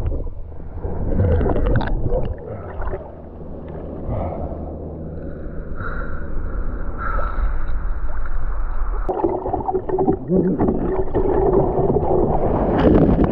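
Sea water sloshing and gurgling around an action camera at the surface, muffled while the lens is under water, turning louder and rougher about nine seconds in as waves break around it.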